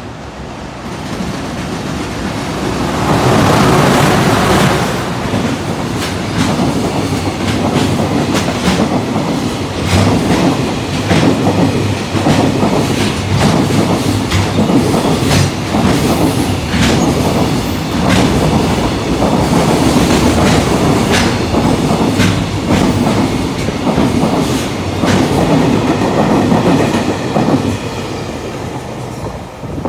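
A JR Freight EH500 electric locomotive hauling a container freight train passes close by at speed. The sound builds over the first few seconds and is loudest as the locomotive goes past. The long string of container wagons follows with a steady clickety-clack of wheels over rail joints, which eases off near the end as the last wagons pass.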